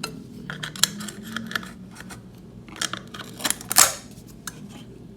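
Metal tool scraping and prying at a soldered-down metal shield can on a circuit board: irregular clicks and short scratches, with one longer, louder scrape a little before the end.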